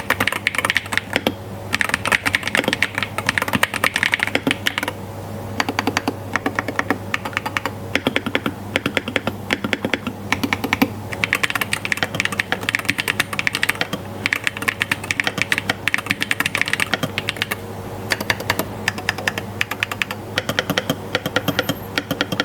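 Fast typing on an ATK RS7 Hall effect keyboard with Gateron magnetic jade switches: rapid key clicks in long runs broken by a few short pauses.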